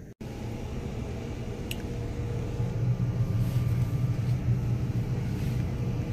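Steady low rumble, a little louder after a couple of seconds, with a faint tick about two seconds in.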